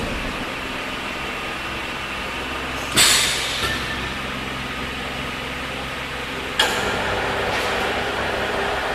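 Machinery running with a steady hum, a sudden hiss of released air about three seconds in, and a sharp click past the middle, after which the running noise is a little louder.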